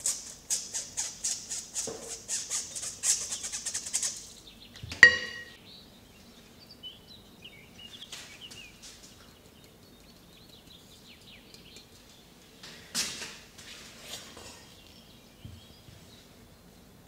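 Kitchen utensil work in a bowl: about four quick strokes a second for some four seconds, then a single ringing metal clink, then a few light knocks.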